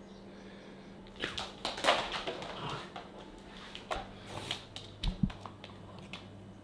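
A dog's claws clicking and paws tapping on a vinyl floor as it goes after a small toy football: scattered light taps, with a duller thump about five seconds in.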